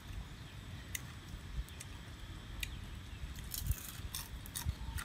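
Small cooked crabs being cracked and picked apart by hand while being eaten: a few sharp crackles and clicks of shell scattered through, with soft chewing.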